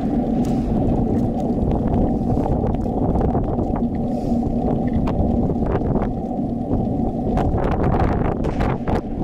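Steady low rumble of wind on the microphone and the pet stroller rolling, with distant firecrackers popping now and then, several in quick succession near the end.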